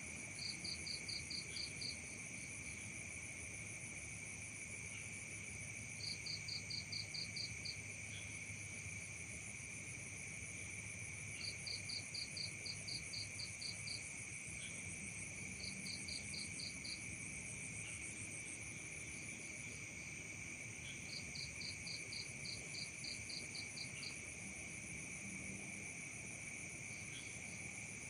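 Night chorus of crickets and other insects: several steady high-pitched trills at different pitches. Every few seconds a second caller adds a short burst of rapid pulsed chirps.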